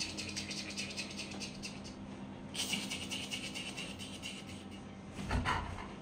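A German Shepherd panting rapidly, with a short break about two seconds in. A brief louder sound comes near the end.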